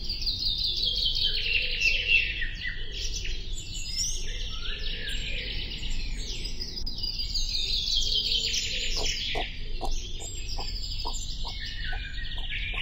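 Songbirds singing, a dense chorus of chirps and repeated falling trills. In the last few seconds a lower, short note repeats about three times a second beneath the song.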